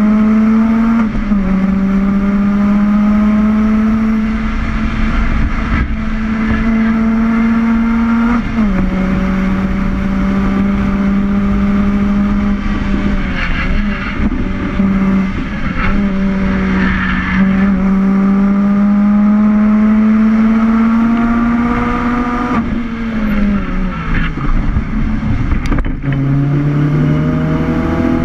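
A car engine held at high revs under hard acceleration on track. Its note climbs slowly through each gear and drops sharply at every upshift, with a few dips and blips in the middle and near the end where it lifts off and changes down. Tyre and wind noise run underneath.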